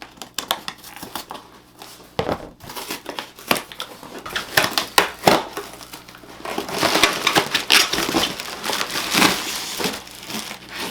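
Packaging being opened and handled: a string of irregular crinkling and crushing crackles as a box is unpacked, thickest in the second half.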